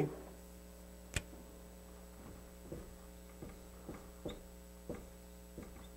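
Dry-erase marker writing on a whiteboard: a run of short, faint squeaky strokes and taps, over a steady mains hum. A single sharp click comes about a second in.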